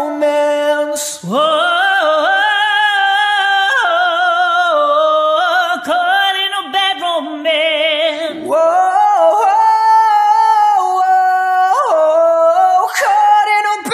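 A man and a woman singing a cappella in turns, with long held notes, wide vibrato and sliding runs between pitches.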